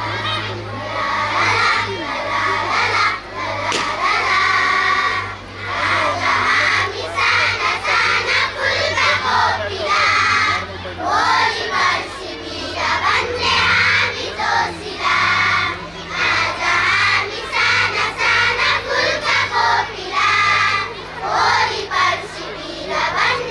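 A large group of children singing together in unison into stage microphones, in phrases with short breaks, over a steady low hum.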